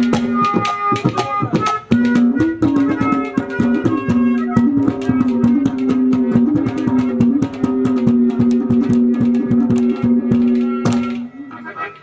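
Live folk instrumental interlude: hand drums and clay-pot percussion keep up a fast rhythm under a melody line over a steady held drone note. The music fades down near the end.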